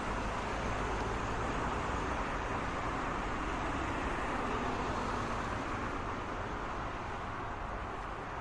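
Road traffic noise: a steady wash of cars and tyres on the road, with no single vehicle standing out, easing a little near the end.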